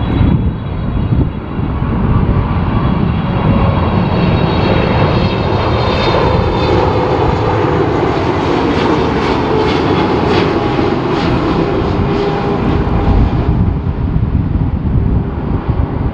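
Boeing 777-300ER's GE90-115B turbofans on final approach, flying past: a steady jet roar with a high fan whine. The tones slide down in pitch as it goes by.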